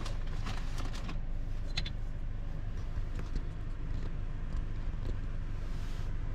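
Car driving slowly, a steady low rumble of engine and road noise, with a few scattered clicks and knocks in the first couple of seconds.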